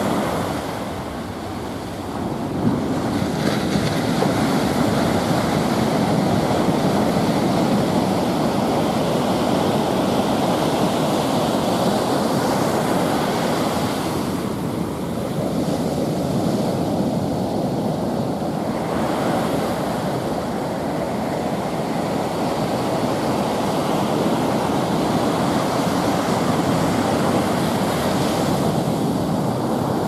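Ocean surf: waves breaking and washing up a sandy beach in a steady rush that swells and eases, with one brief knock about three seconds in.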